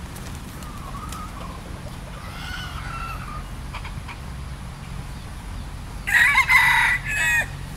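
Red junglefowl rooster crowing once, loud and brief with a short break near its end, about six seconds in. Fainter bird calls come earlier.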